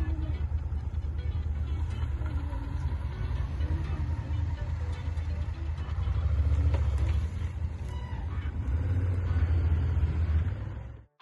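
Honda XL1000 Varadero's V-twin engine running as the motorcycle is ridden, growing louder twice, then cutting off suddenly near the end.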